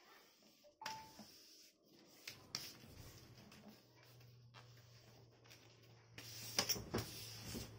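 Sheet of paper being folded and creased by hand on a table: quiet rustles and light taps, a little louder near the end, over a faint steady low hum.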